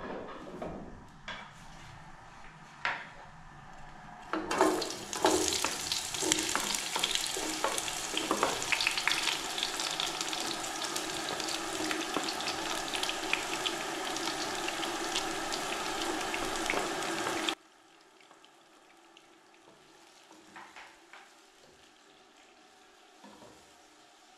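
Chopped onions sizzling in hot cooking oil in a pot, loud and steady. The sizzle starts about four seconds in after a few light clicks and cuts off suddenly about two-thirds of the way through, leaving only faint knocks of a wooden spatula.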